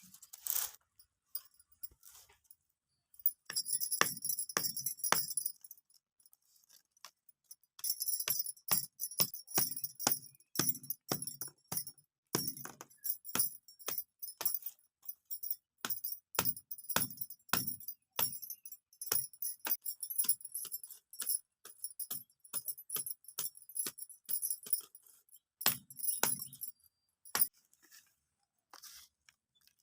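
Metallic jingling and clinking in irregular runs of sharp clicks with soft thuds beneath, pausing briefly and stopping about 27 seconds in.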